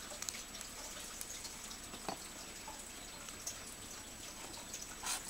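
Quiet room tone: a steady faint hiss with a single soft tick about two seconds in.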